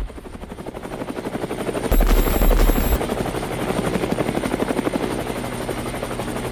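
Helicopter rotor sound effect: a rapid, even chopping of blades that grows louder over the first two seconds, with a deep low rumble about two seconds in, then runs on steadily.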